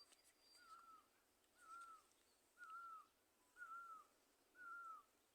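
A bird repeating a short, faint, hook-shaped call about once a second, with a few fainter high chirps of other birds in the background.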